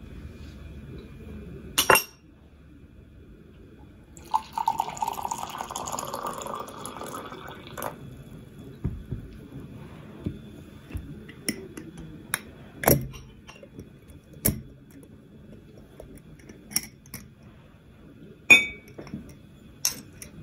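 Glass and metal clinks and clicks: a clip-top glass jar and its wire clasp being handled, and a metal spoon knocking against glass as candied kumquats in syrup are spooned out. About four seconds in there are a few seconds of a hissing, rushing noise.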